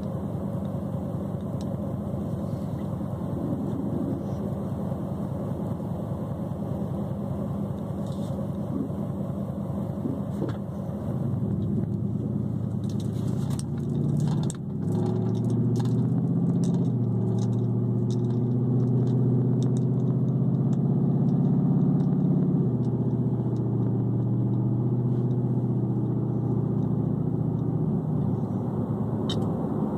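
Pickup truck engine heard from inside the cab: idling with a steady low pulse, then growing louder about twelve seconds in as the truck pulls away, and running steadily under way.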